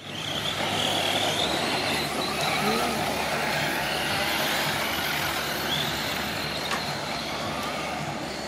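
Radio-controlled off-road trucks driving on a dirt field, their motors whining up and falling back in pitch with the throttle over a steady hiss.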